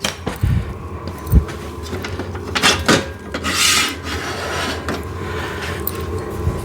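A few clunks and knocks from a home-gym chest press machine being adjusted, then a short scrape about three and a half seconds in.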